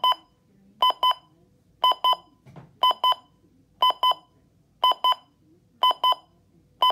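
Midland WR120 weather radio's alarm clock going off: a very loud double beep, repeated about once a second.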